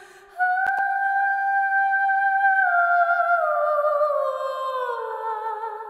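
Background music: a slow melody of long held notes that starts a moment in, holds steady, then slides down in pitch through the second half.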